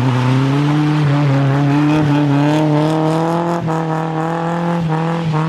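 Nissan 240SX's engine held at steady high revs while the car slides around on wet pavement, with two brief dips in the note partway through.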